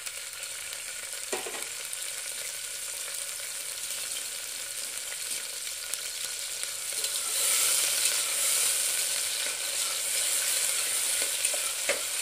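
Chopped green onions sizzling in hot oil in the base of an aluminium pressure cooker, a steady hiss that grows louder about seven seconds in. A few knocks of the spatula against the pot come near the end.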